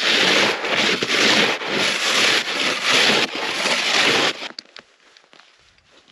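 Snow shovel scraping across hard-packed snow in quick repeated strokes, stopping abruptly about four seconds in; a few faint clicks follow.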